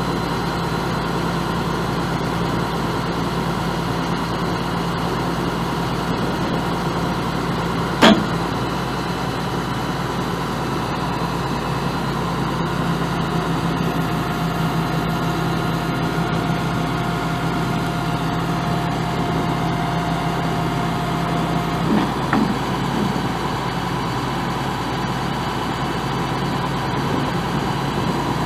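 The Caterpillar 3116 six-cylinder diesel of a 1995 Chevrolet Kodiak truck idling steadily. There is one sharp knock about eight seconds in, a faint steady whine for several seconds in the middle, and a couple of smaller knocks near the end of that whine.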